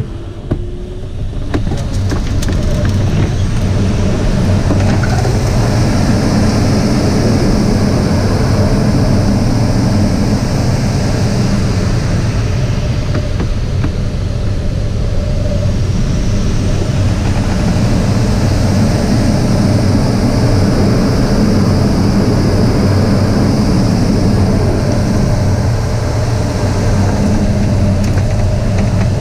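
Airflow rushing over the canopy of a Schleicher ASK 21 (K21) glider, heard from inside the cockpit during aerobatics. A loud steady rush builds about two seconds in, then swells and eases twice as the airspeed changes through the manoeuvres, with a faint high whistle rising and falling with it.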